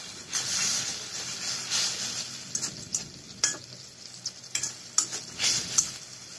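Spice paste sizzling in oil in a metal karahi while a spatula stirs it, scraping and clicking against the pan several times. The sizzle swells and fades as the paste is turned.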